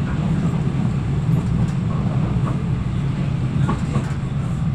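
Blackpool tram running along the line, heard from inside the car: a steady low rumble of the wheels and running gear on the rails, with a few faint clicks and rattles.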